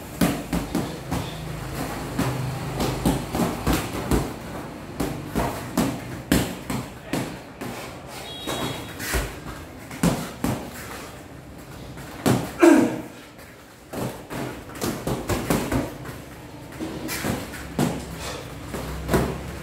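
Boxing gloves landing in quick irregular thuds and slaps on gloves, arms and padded headgear during sparring. One louder hit about twelve and a half seconds in comes with a brief voice sound.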